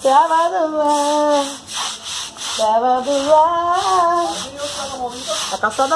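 A broom scrubbing the ground in strokes about twice a second, under a voice singing long, wavering held notes, which is the loudest sound.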